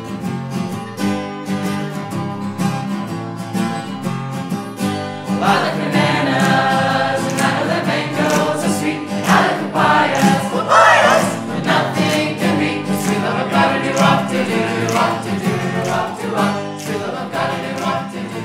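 Music: strummed guitar accompaniment with a group of voices singing, the singing growing stronger about five seconds in.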